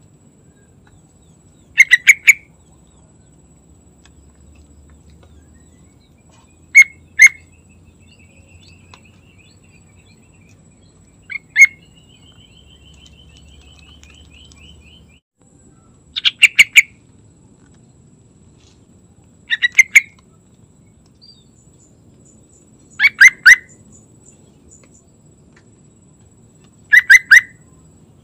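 Yellow-vented bulbul (trucukan) calling: seven short, loud phrases of two to four quick notes, spaced about every four seconds. Between the phrases come two faint, fast trills.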